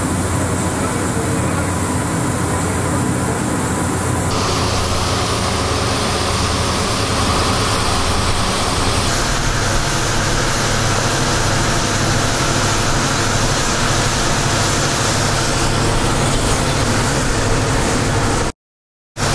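Loud, steady mechanical drone with a low hum under a rushing hiss, like heavy machinery running. It cuts out completely for about half a second near the end.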